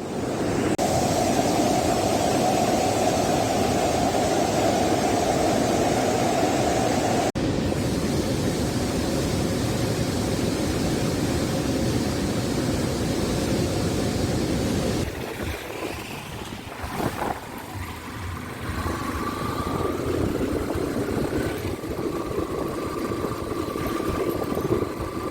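The Pambar river in spate, rushing loudly and steadily with its water high after rain. About 15 seconds in it gives way to a quieter, steady vehicle engine hum.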